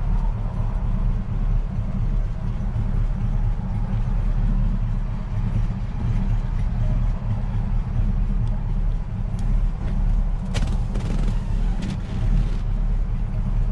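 Steady low rumble of wind buffeting the microphone. A few clicks and rustles near the end as the pickup's vinyl bench seat back is handled and tipped forward.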